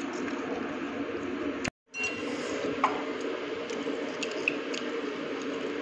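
Steady noise of heavy rain, with a few faint light clicks through it; the sound cuts out completely for a moment a little under two seconds in.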